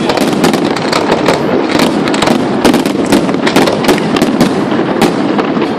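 Fireworks display going off: a rapid, continuous string of loud bangs and crackles.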